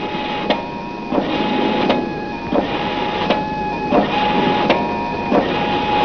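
Spirograph's recording mechanism running: a steady mechanical whirr with a thin whine and regular clicks about every 0.7 seconds as the spirogram is being recorded.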